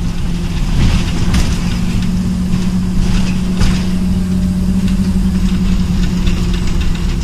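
Scania OmniCity N230UD double-decker bus's diesel engine running steadily under way, heard from inside the passenger saloon as a steady low hum, with a few short knocks in the first few seconds.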